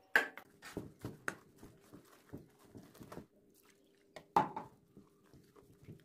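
Plastic spoon stirring a wet gram-flour and spinach batter in a steel bowl: irregular small scrapes and wet knocks against the bowl, with two louder knocks, one at the start and one a little past four seconds in.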